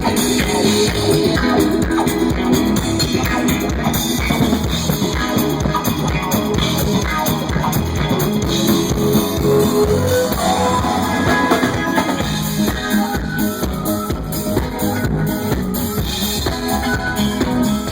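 Rock band playing live, with drum kit and guitar, steady and loud throughout.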